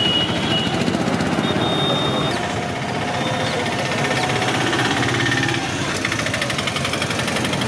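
A small engine running steadily close by, with a fast, even pulsing beat, amid roadside traffic noise.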